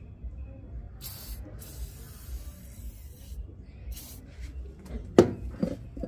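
WD-40 aerosol can spraying in three hissing bursts: a short one about a second in, a longer one of nearly two seconds, and a brief one around four seconds. Near the end a sharp knock and a lighter one as the can is set down on the washing machine's plastic top.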